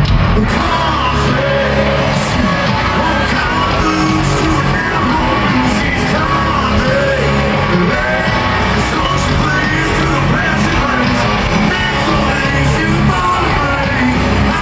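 Live country-rock band playing loud through a stadium sound system, with a singer's voice over the band and the crowd yelling along.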